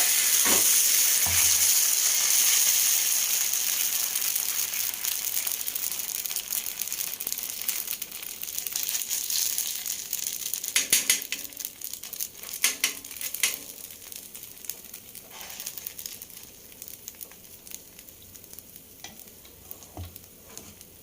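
A roti of ground rice and thuthuvalai leaves sizzling on a hot pan. The sizzle is loud at first and dies down gradually, with a few sharp clicks of a utensil about halfway through.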